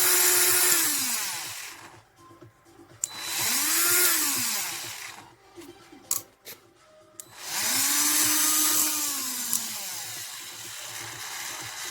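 Cordless 12V mini rotary tool's motor whining and spinning down about a second in, then started twice more in short runs that rise and fall in pitch, with a few clicks in the pauses between. The motor makes a grinding noise, which the owner takes for a faulty motor.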